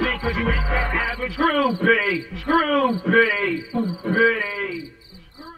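Soundtrack music with a repeated bending melodic figure, its bass dropping out about a second and a half in and the track fading out near the end. A steady chirping of crickets runs underneath.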